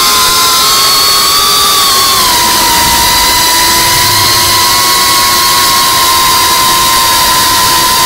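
GEPRC CineLog35 FPV cinewhoop's brushless motors and ducted propellers whining, heard from the drone's own onboard camera. A steady high-pitched whine whose pitch dips a little about two seconds in and then holds level as the drone climbs.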